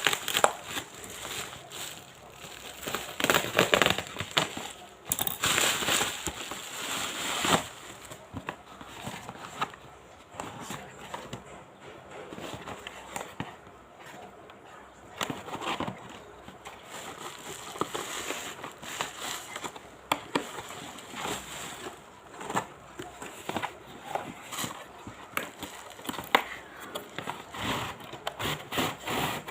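Packaging rustling and crinkling, with scattered clicks and knocks, as a boxed tripod is unpacked and handled; the louder bursts come in the first several seconds.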